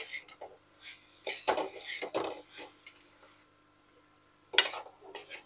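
Metal spatula scraping and clinking against a metal kadai while stirring amaranth greens with chopped vegetables. The strokes come in short clusters, with a quiet second before the loudest strokes near the end.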